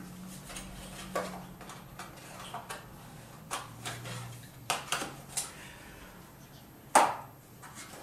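Handling noise: scattered light clicks and knocks as a box and a plastic coffee canister are moved and set down, with one sharp snap about seven seconds in.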